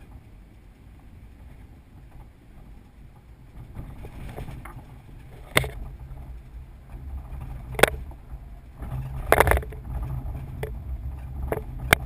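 Car engine and road rumble heard from inside a moving car, growing louder about four seconds in as it picks up speed. Several sharp knocks and rattles cut in along the way.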